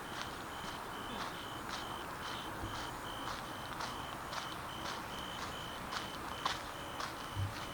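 Footsteps of a person walking on a paved path at an unhurried pace, with a short high-pitched chirp repeating about two to three times a second behind them.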